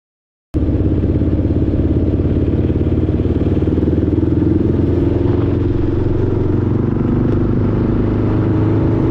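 Motorcycle engine running steadily, heard from the bike's onboard camera, cutting in abruptly about half a second in.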